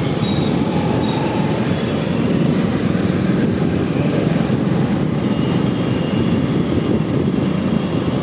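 Steady rumble of wind on the microphone and road noise from riding a two-wheeler through city traffic, with the engines of the surrounding motorcycles mixed in.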